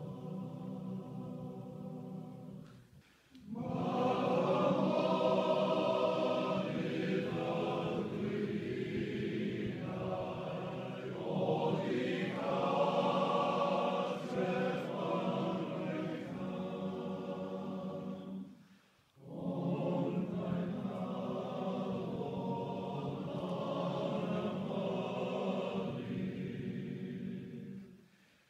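A choir singing a slow song in long held phrases, with short breaks between phrases about three seconds in, past the middle, and near the end.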